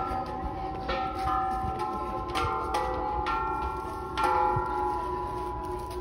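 A row of hanging Thai temple bells struck one after another with a wooden stick, about once or twice a second, each strike ringing on and overlapping the next.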